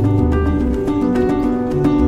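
Background music: quick plucked notes over a changing bass line.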